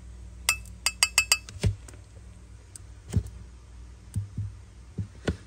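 Brass Zippo lighter case being handled: a quick run of sharp, ringing metallic clinks about half a second in, followed by a few duller knocks.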